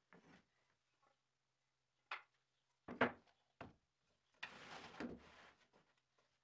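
Pieces of wood being handled: a few sharp knocks about two to three and a half seconds in, the middle one loudest, then a scrape lasting about a second.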